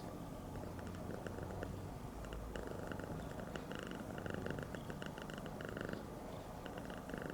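A Siamese cat purring steadily.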